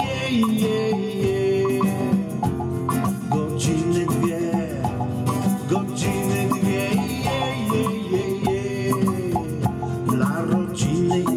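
Live acoustic music: a strummed acoustic guitar with congas played by hand and a large bass drum struck with a mallet, keeping a steady rhythm.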